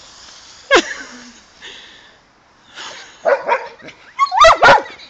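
Dog barking: one sharp bark about a second in, a few quicker, quieter barks past the middle, then two loud barks close together near the end.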